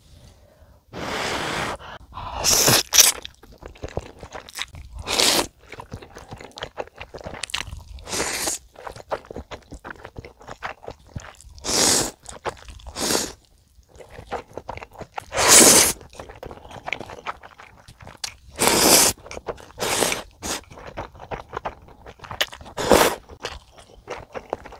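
Ramen noodles from budae-jjigae (spicy sausage stew) slurped up in about a dozen loud, quick bursts, with wet chewing clicks between them, close to the microphone.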